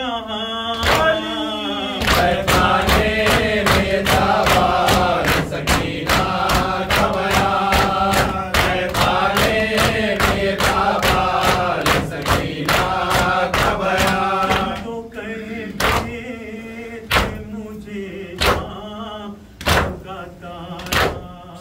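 Men's voices chanting a Muharram noha (lament) in unison while beating their chests in time (matam), each hand striking the chest with a sharp slap, about two a second. About fifteen seconds in the chanting fades and the slaps slow to roughly one a second.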